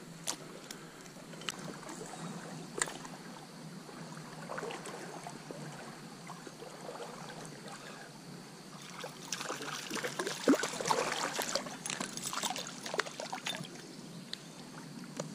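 Shallow stream water running, with a few sharp clicks and then a stretch of irregular splashing about nine seconds in that lasts roughly four seconds.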